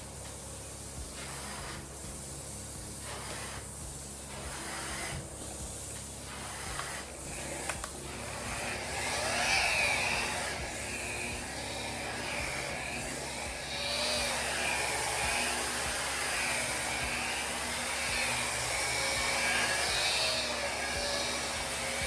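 Electric polishing machine running on a granite countertop. About eight seconds in it grows louder, and its whine repeatedly rises and falls as it is worked back and forth over the stone.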